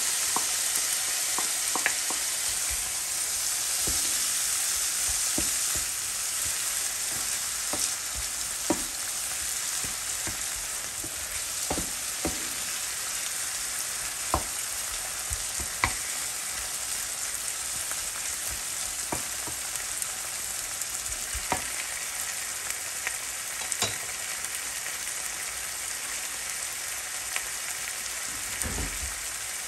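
Diced onion, tomato and bell peppers frying in butter in a frying pan: a steady high sizzle that eases slightly over time. A wooden spoon stirring against the pan adds scattered clicks and knocks, with a low thump near the end.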